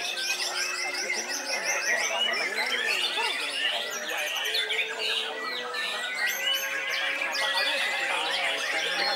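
White-rumped shama singing a varied, continuous song of held whistles, rapid trills and gliding notes, with other caged birds calling alongside it.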